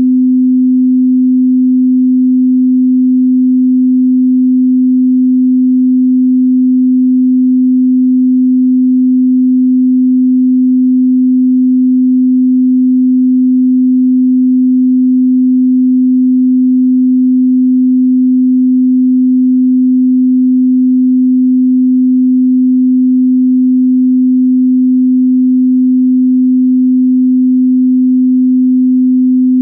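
A pure 255 Hz sine tone, held steady and loud with no change in pitch or level.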